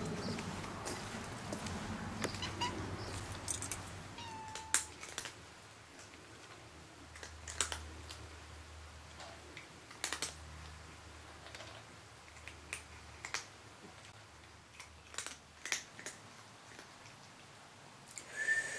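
Domestic cat crunching dry kibble, sharp crisp crunches at irregular intervals, with a short meow near the end.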